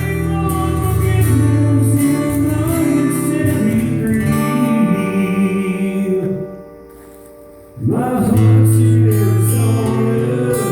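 A song played live with guitar and a singing voice. About two-thirds through, the music drops to a short, quiet pause, then comes back in at full level.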